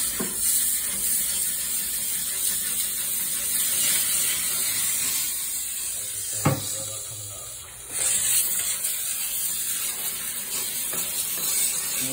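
Steam cleaner jetting steam through its wand onto greasy range-hood baffle filters to lift built-up grease sediment: a steady hiss that weakens briefly about seven seconds in and then comes back, with one sharp knock a little before.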